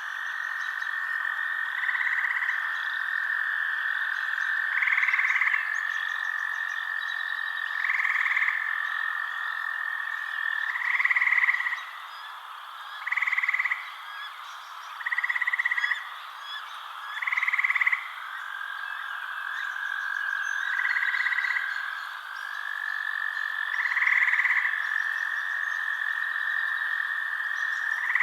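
Frogs croaking at night: about ten short calls, repeating every two to three seconds, over a continuous high-pitched trill.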